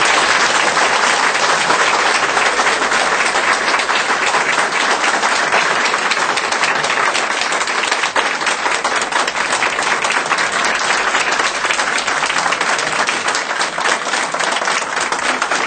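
A crowd applauding: many hands clapping in a long, steady round.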